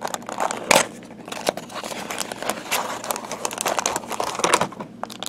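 Small cardboard product box being opened by hand, with irregular rustling, crinkling and clicks of cardboard and plastic wrap as the packaged item is slid out.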